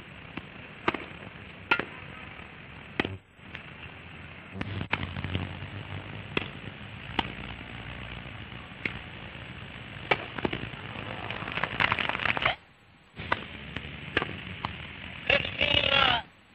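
Hissy, muffled old newsreel soundtrack with sharp irregular clicks and pops, about one a second, and two short swells of crowd noise late on. The sound drops out briefly a few times.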